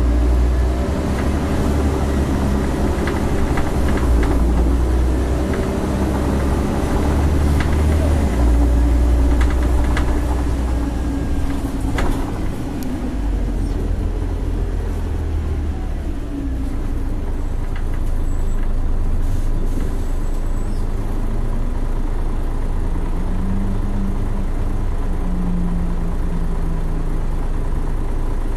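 Scania L113CRL bus's diesel engine heard from inside the passenger saloon, running steadily with a deep rumble that is louder in the first half and settles lower after about thirteen seconds. A sharp knock comes about twelve seconds in.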